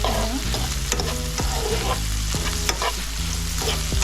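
Onions and sweet peppers sizzling in a frying pan while being stirred, the utensil clicking and scraping against the pan at irregular moments.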